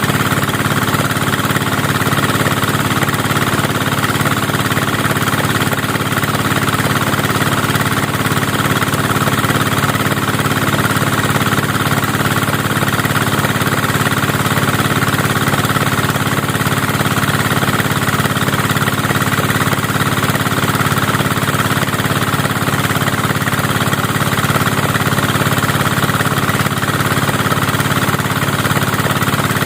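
Engine-driven rice threshing machine running steadily under load.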